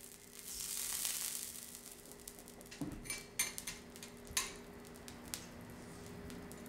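Food sizzling on a teppanyaki griddle, swelling in the first second or so and then dying away, followed by a few sharp clinks and taps of metal utensils about halfway through.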